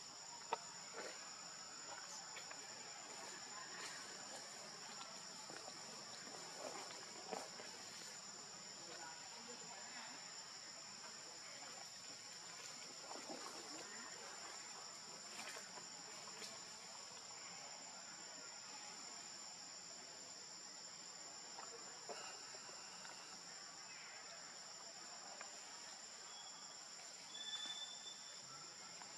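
Steady insect chorus of two constant high-pitched drones, with occasional faint rustles and clicks, and a brief high chirp near the end.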